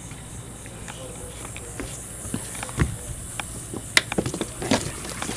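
Dock lines being handled on a moored boat: scattered knocks and light taps, with one sharp click about four seconds in, over a low steady hum.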